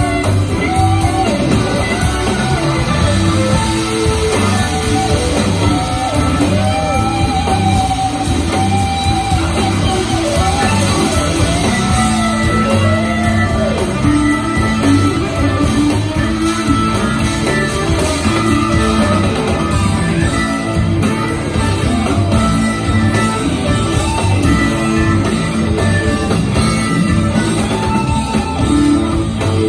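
Live rock band playing an extended jam, with electric guitar, keyboards, drums and bass, heard from the audience. A lead line swoops and bends in pitch through the first half, then the band settles into held chords.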